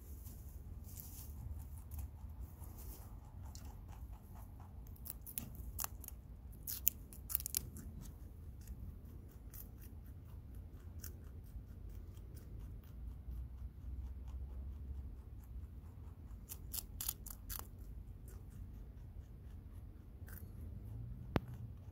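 A lop-eared rabbit chewing a crisp green stalk: rapid sharp snipping crunches as it bites through, bunched in two busy spells, one a few seconds in and another near the end.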